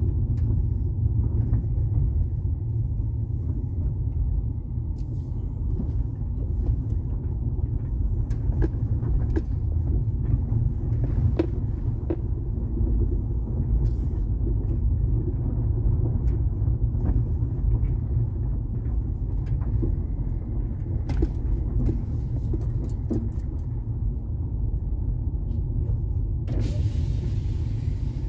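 Inside a Mazda 5 driving on a rough gravel road: a steady low rumble of tyres and engine, with scattered clicks and knocks from stones and rattles. A short rushing hiss comes about a second and a half before the end.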